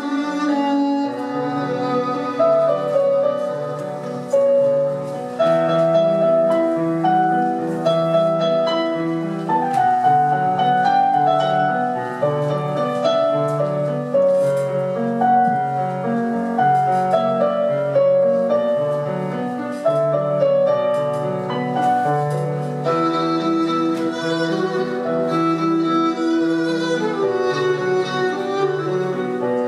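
Instrumental music: bowed strings and piano playing a melody over a steady, repeating accompaniment.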